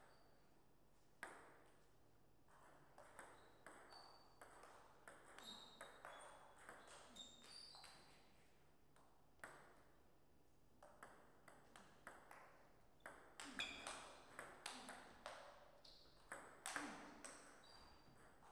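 Table tennis ball clicking off paddles and the table, each hit a short, sharp ping. A scattered run of hits starts about a second in, then a faster rally of louder hits comes in the second half.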